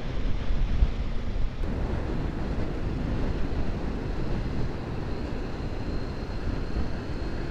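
Wind buffeting the microphone of a motorcycle riding at road speed, over the low, steady running of its engine and tyre noise.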